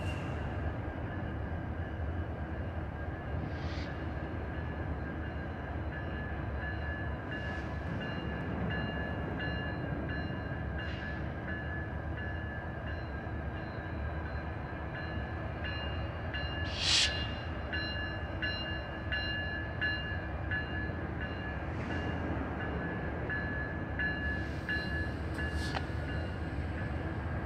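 Diesel locomotives running in a rail yard: a steady low rumble with a thin steady whine over it. Several brief sharp sounds break through now and then, the loudest about seventeen seconds in.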